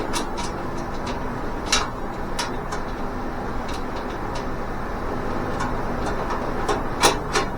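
Light metal clicks and clinks of sheet-steel cart parts and bolts being handled while bolts are started by hand, scattered and irregular with a couple of sharper ones near the end, over a steady low background noise.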